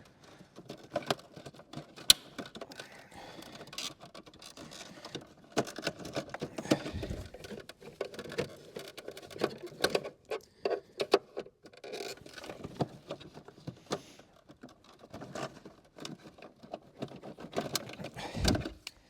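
Hands working at plastic relays and the relay box in a car's engine bay: irregular plastic clicks, knocks and rustling, with one sharp click about two seconds in and a duller knock near the end.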